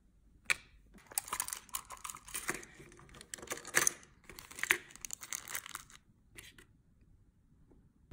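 Plastic wrapping crinkling and rustling as it is handled, with a few sharp clicks among it; the crinkling starts about a second in and stops about six seconds in.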